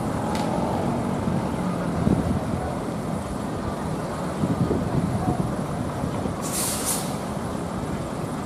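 Diesel coach bus engine running as the bus creeps forward into the terminal bay, with a short hiss of air brakes about six and a half seconds in.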